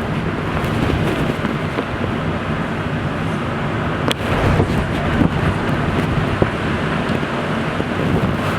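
Typhoon wind blowing hard, with a steady loud rushing and wind buffeting the microphone. One sharp click about four seconds in.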